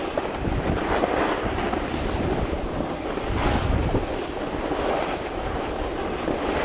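Wind rushing over an action camera's microphone, mixed with the steady scrape of a snowboard sliding and carving on snow, swelling and easing unevenly.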